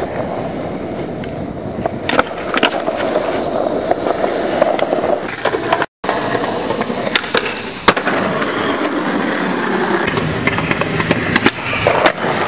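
Skateboard wheels rolling on pavement, with several sharp clacks of the board hitting the ground. The sound drops out for a moment about six seconds in, then the rolling resumes.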